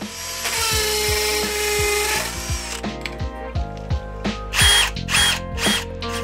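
A power drill running for about two seconds, boring a hole into a rendered wall, then three short bursts of the drill-driver running a screw in to fix a brass wall plate. Background music plays underneath.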